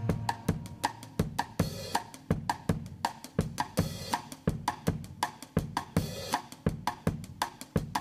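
Background music: a drum-kit passage of quick, evenly spaced strikes, about four a second.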